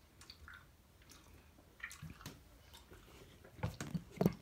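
Faint small clicks and soft wet sounds, then two dull thumps in quick succession near the end as the camera is picked up and moved.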